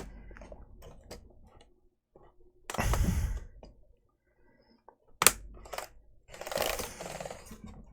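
Laptop keyboard being pressed into the palmrest, its plastic retaining tabs snapping into place: a few small clicks, a sharp snap about five seconds in, and two longer stretches of plastic handling noise.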